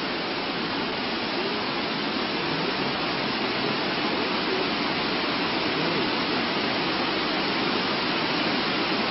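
A steady, even rushing noise that does not change, with faint voices in it once or twice.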